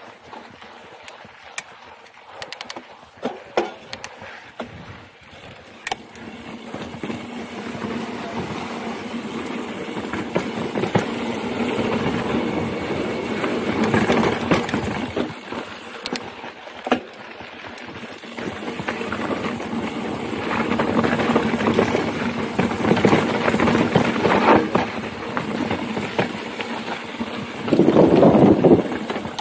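Mountain bike riding fast down a dirt singletrack: a rushing noise of tyres on dirt that swells and fades with speed, broken by sharp clicks and rattles from the bike over bumps, with the loudest rush near the end.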